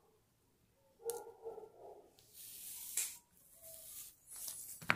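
Faint clicks and handling noises of steel tweezers working on a small automatic watch movement as parts are taken off the plate, with a brief hiss in the middle and a sharper click near the end.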